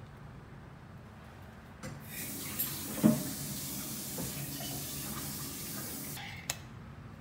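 Kitchen tap running for about four seconds, a steady hiss of water, with a knock about a second after it starts and a click as it is shut off.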